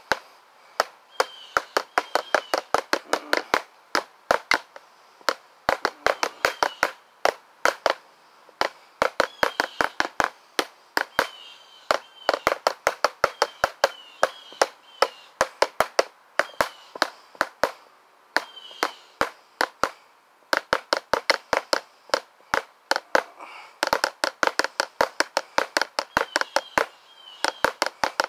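Drumsticks striking a drum in fast runs of rapid, sharp strokes, in bursts of a few seconds with short breaks between them.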